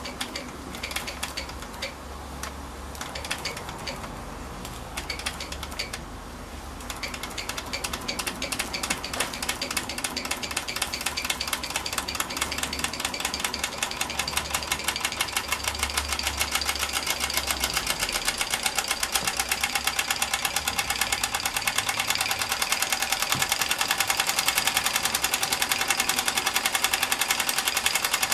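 Mamod miniature steam roller's little steam engine getting going after a hand start: a few uneven puffs and clicks, then from about six seconds in a fast, even chuffing that grows steadily louder as it gets up to speed.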